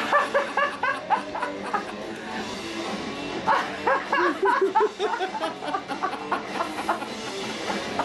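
Background music with quick, short notes in a lively pattern.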